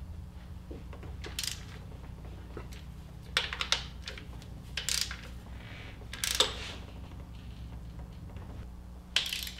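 Socket ratchet clicking in short bursts every second or two as the alternator's mounting bolts are tightened down, over a steady low hum.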